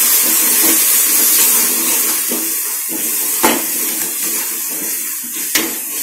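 Onion and spice masala sizzling steadily in hot oil in a metal pot while being stirred, with a metal spoon knocking against the pot twice.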